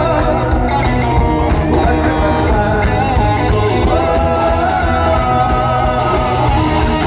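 Live rock band playing loud through a PA: a singer over electric guitars, bass and drums, heard from the audience.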